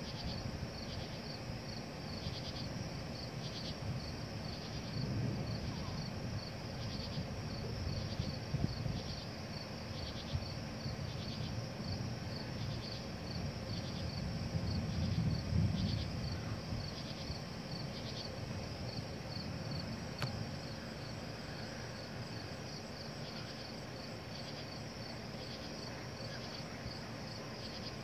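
Night insects chirping in a steady, high, rhythmic chorus. Under them runs a low rumble that swells twice, about five and fifteen seconds in.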